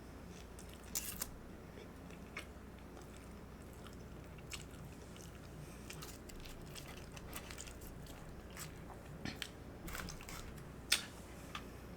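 A person eating: quiet chewing and biting with scattered sharp, crisp crunches, the sharpest about a second in and near the end.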